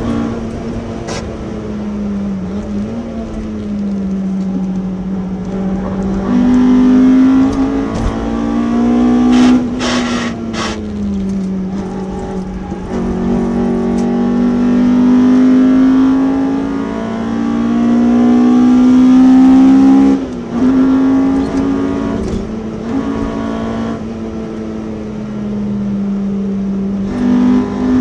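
Honda B18C 1.8-litre DOHC VTEC four-cylinder heard from inside the Civic's cabin, pulling through the gears. Its note climbs and falls with throttle, jumping abruptly at several gear changes.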